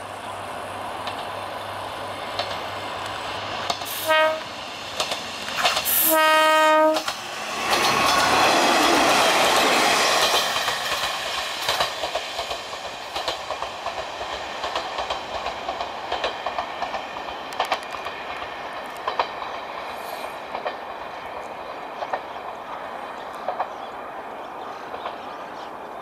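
Kanto Railway KiHa 2100-series diesel railcar sounding its warning horn for an ungated level crossing: a short blast, then a longer one about two seconds later. It then runs past loudly, and its rumble and clicking wheels fade as it moves away.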